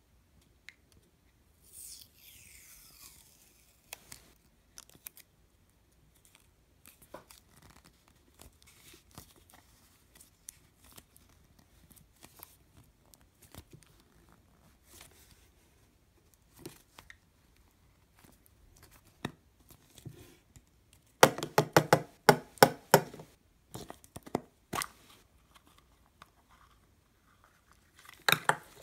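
Hands working a plastic gashapon capsule open: scattered small clicks and scrapes of hard plastic, a dense run of rapid clicking and crackling about three-quarters of the way through, and a sharp snap near the end as the capsule halves come apart.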